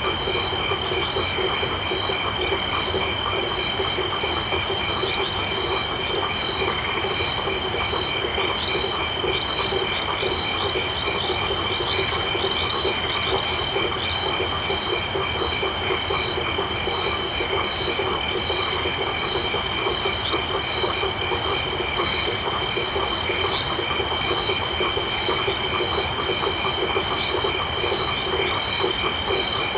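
Dense night chorus of frogs and crickets: a continuous high insect trill and rows of rapid repeating chirps over a low, pulsing frog chorus, steady throughout.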